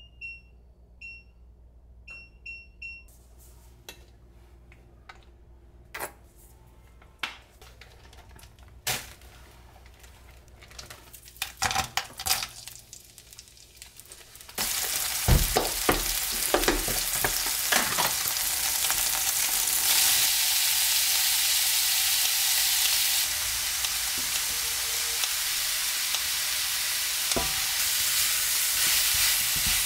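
A few short electronic beeps, then scattered taps and clinks of kitchen utensils. About halfway through, food goes into a hot oiled pan and starts sizzling loudly and steadily, with the clatter of stirring.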